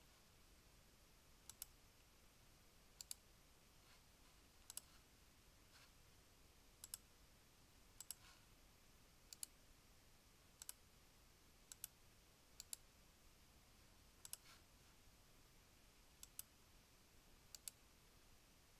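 Faint computer mouse button clicks, a dozen or so, many in quick pairs, coming every one to two seconds.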